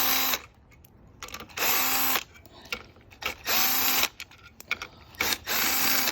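Power drill spinning out 10mm bolts from a motorcycle clutch cover, running in short bursts of under a second, about four times, with a steady motor whine in each.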